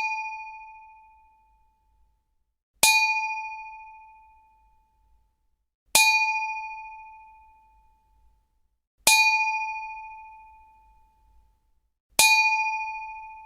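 Metallic ding: a piece of metal struck once, ringing with a clear tone and fading away, repeated about every three seconds so that four strikes are heard after the dying ring of one before.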